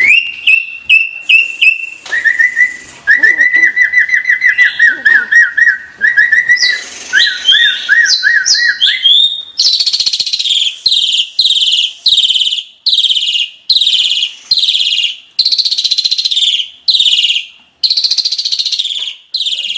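Asian pied starling (jalak suren) singing: rising whistled notes, then a run of quick repeated whistles, and from about ten seconds in a string of harsh, grating calls, about three every two seconds.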